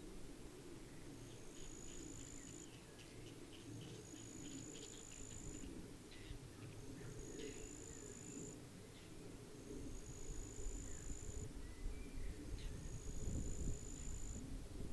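Pond-side ambience. An insect repeats a high, thin buzzing song, each phrase about a second and a half long and coming every two to three seconds, while short bird chirps sound between the phrases. A low wind rumble grows louder in the second half.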